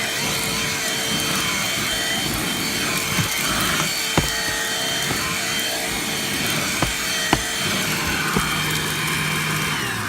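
Bissell AutoMate lithium-ion cordless car vacuum running with its brush attachment over the car floor: a steady motor whine with rushing air and the scratchy scrubbing of the brush, with a few sharp clicks. Near the end it is switched off and the motor winds down.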